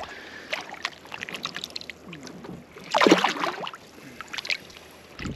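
Water splashing with scattered light knocks and clicks around a small boat, and one louder splash about three seconds in.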